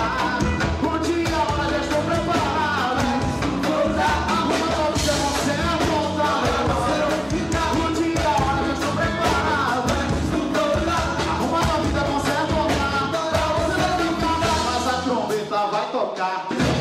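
Gospel band music with a lead voice singing over drums and bass; the bass drops out briefly near the end.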